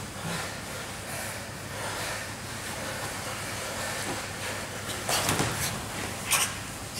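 Steady hiss of room noise, with two brief scuffles about five and six seconds in as the grapplers shift their bodies and gi on the mat.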